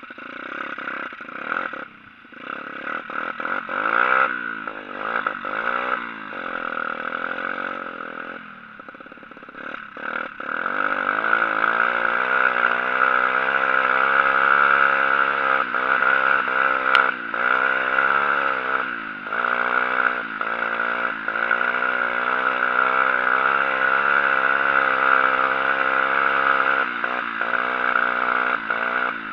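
Dirt bike engine revving up and down as it is ridden, with the throttle opened and closed several times in the first ten seconds, then held at high revs for most of the rest with small rises and falls.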